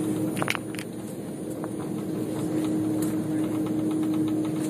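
Jet airliner cabin noise while taxiing: the engines and cabin air give a steady hum with one constant low drone. A few short clicks sound about half a second in.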